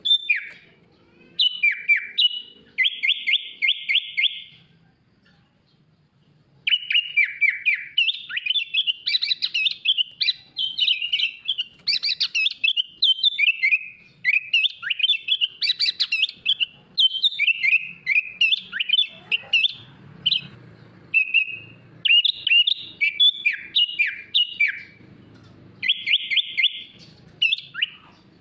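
Sooty-headed bulbul singing a long, varied song of quick chirps and whistled notes. A fast rattling trill comes near the start and again near the end, with a short break about five seconds in.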